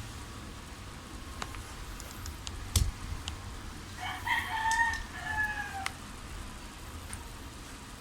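A rooster crowing once, a drawn-out call of about two seconds that falls slightly in pitch. A little before it there is a sharp knock and a few faint clicks.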